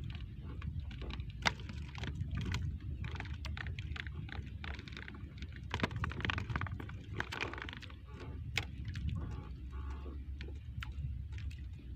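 Irregular small clicks and taps as a sabiki handline and a small caught fish are handled in a wooden canoe, over a steady low rumble.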